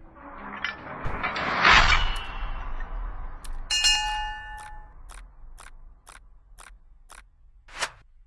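Channel-intro sound effects: a swelling whoosh that peaks about two seconds in, then a bell-like ding with a mouse click as a subscribe button is pressed. A run of sharp clicks, about two a second, follows and fades.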